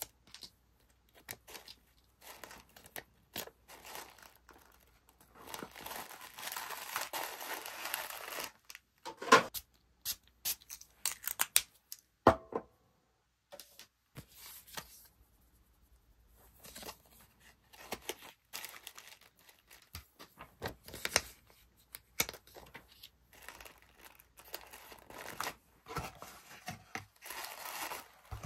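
Paper stickers peeled off their backing and pressed onto tissue-paper wrapping, with tissue paper crinkling and small taps of handling inside a cardboard mailer box.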